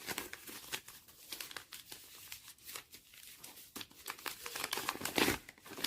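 Paper leaflet rustling and crinkling as it is handled, an irregular run of small crackles that grows louder about five seconds in.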